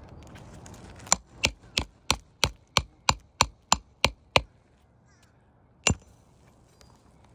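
Hammer blows in a steady run of eleven sharp strikes, about three a second, then one more strike about a second and a half later.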